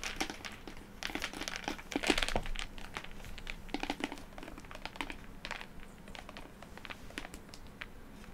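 A plastic shaker cup being handled in the hands, giving crinkly rustling and small plastic clicks. The sound is loudest about two seconds in and thins to a few faint clicks.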